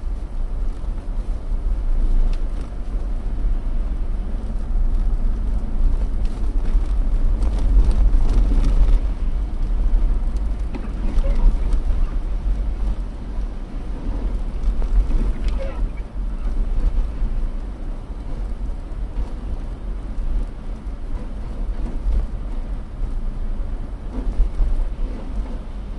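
Car driving over rutted, slushy snow and ice, heard from inside the cabin by a dashcam: a steady low road rumble with scattered knocks and crackles from the tyres on the ruts.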